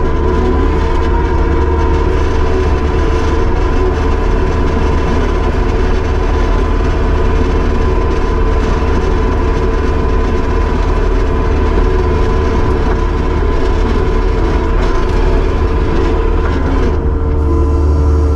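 Kubota SVL75-2 compact track loader's diesel engine running loud and steady, a deep drone with a few steady tones over it.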